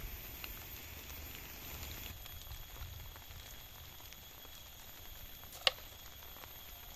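Faint open-air ambience beside a rice paddy: a low rumble and scattered soft ticks, with one sharp click about five and a half seconds in.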